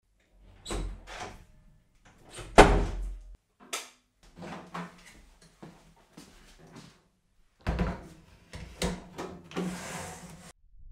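Handling noises of a microwave oven being carried and set down on a workbench: a run of knocks, clicks and thuds, the loudest knock about two and a half seconds in and another heavy thud near eight seconds, then a short scrape near the end.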